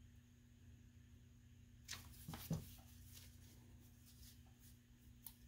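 Paper crinkling and rustling briefly about two seconds in as a paper envelope is folded by gloved hands, with a few faint ticks later, over a low steady hum.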